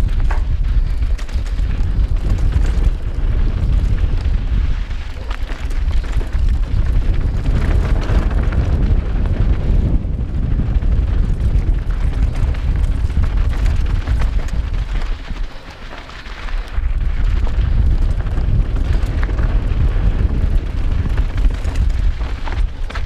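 Wind buffeting the microphone of a helmet-mounted GoPro and tyres crunching over loose dirt and rock as a mountain bike runs fast down a downhill trail. The noise is a steady, heavy rumble with a brief lull about 16 seconds in.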